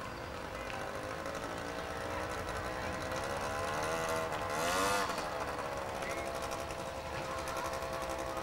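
A small engine running steadily, its pitch dipping and rising again about halfway through, with a brief rush of noise at the same moment.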